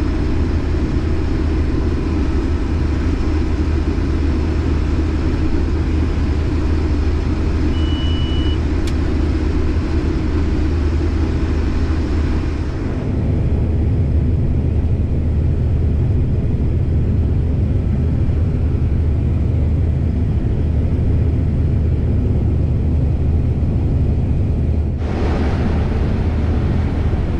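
Case IH 2388 combine harvesting corn, heard from the cab: a steady low engine and threshing drone. A short high beep sounds about eight seconds in, and the higher-pitched part of the noise drops back for a stretch in the middle.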